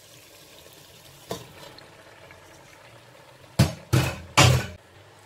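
Boiled elbow macaroni tipped into a steel pot of chicken and vegetable masala: a soft drop about a second in, then three loud wet thuds in quick succession near the end.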